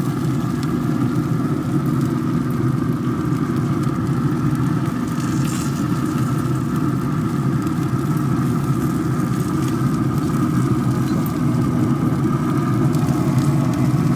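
A steady mechanical hum from a running motor or engine, unchanging throughout.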